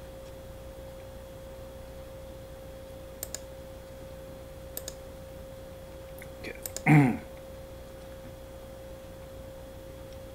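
A few sparse computer keyboard clicks over a steady high-pitched hum, with one short, low voice-like sound about seven seconds in, the loudest thing heard.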